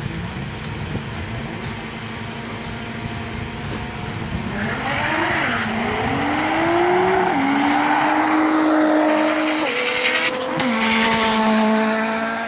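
Toyota Corolla 2.0 4WD drag car accelerating flat out down the strip. About four seconds in, its engine note starts climbing and falls back at each gear change, growing louder as the car approaches.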